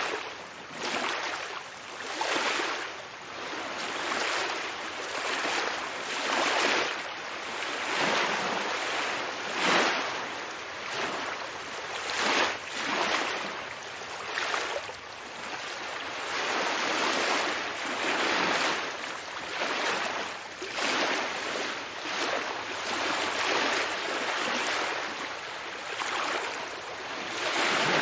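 Ocean waves washing, a continuous hissing wash that swells and fades every second or two.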